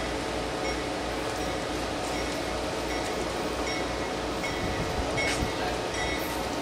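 Amtrak Downeaster passenger train approaching slowly, a steady rumble with a few faint short squeaks and a single click about five seconds in.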